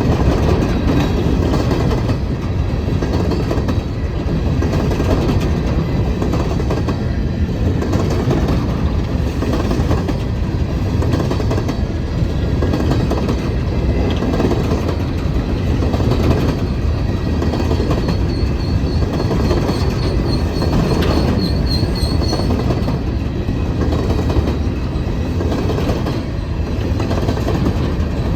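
Cars of a BNSF coal train rolling past on steel rails: a steady rumble with repeating clickety-clack of wheels over rail joints. A high wheel squeal rings for a few seconds about two-thirds of the way through.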